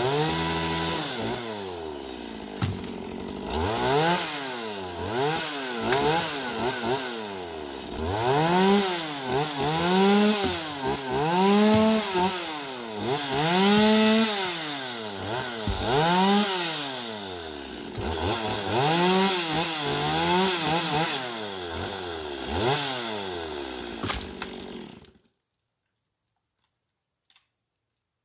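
Chainsaw cutting, its engine pitch rising and falling over and over as it is revved and loaded in the cut, then stopping abruptly near the end.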